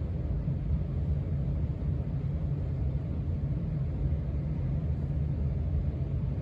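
Casablanca Four Seasons ceiling fan running steadily on its lowest speed, a steady low rumble of motor and moving air. It runs smoothly on newly replaced bearings and a replacement flywheel.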